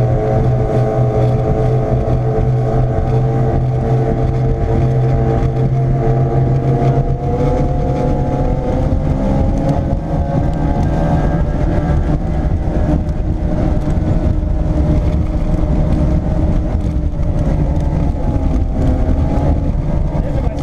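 OMC V8 outboard motor running at speed on a speedboat, a steady engine note that edges up slightly near the middle, under heavy wind rush on the microphone and hull and water noise.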